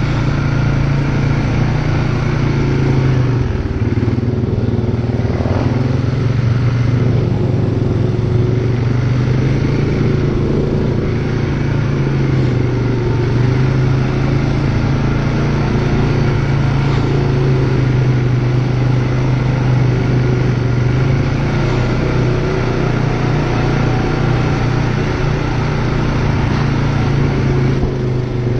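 ATV engine running steadily while riding at a slow, even pace. The low hum holds and its pitch shifts only slightly.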